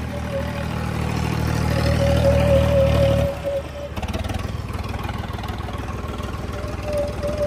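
Diesel tractor engine straining at full throttle in a tug-of-war pull, getting louder with a thin whine above it. About three and a half seconds in it drops abruptly to a lower, evenly pulsing run as the throttle is cut.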